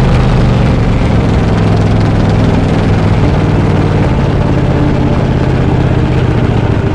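Racing lawn mower's engine running at a steady speed.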